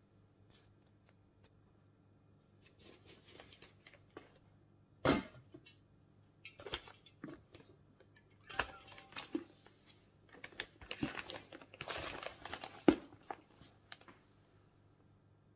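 A plastic food container with a red snap-on lid and a soft insulated lunch bag being handled on a countertop: scattered knocks and clicks, the loudest a single knock about five seconds in. Later comes a few seconds of fabric rustling and crinkling as the bag is packed, ending in a sharp click.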